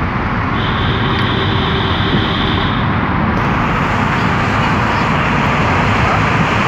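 Steady road and engine noise inside the cabin of a moving car, with a thin high steady whine for about two seconds near the start.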